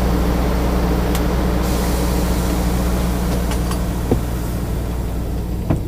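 Semi-truck's diesel engine idling steadily, heard from inside the cab, with a few light clicks.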